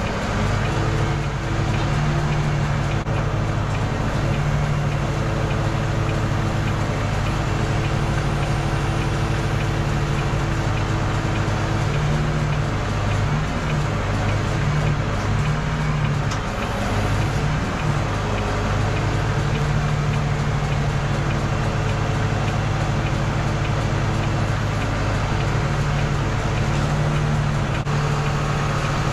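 Volvo FE 320 truck's six-cylinder diesel engine running steadily while it powers the Hiab loader crane's hydraulics, heard from inside the cab. The engine note wavers and dips for a few seconds about halfway through.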